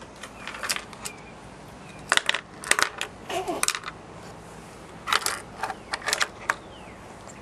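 A toddler tapping at a sliding glass door: light, irregular taps and clicks in small clusters, with a short child's vocal sound about three and a half seconds in.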